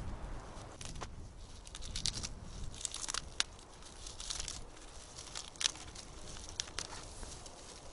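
Thin dry twigs snapping and crackling as they are broken off a small tree by gloved hands: a string of short, sharp cracks a second or so apart, with a few louder snaps.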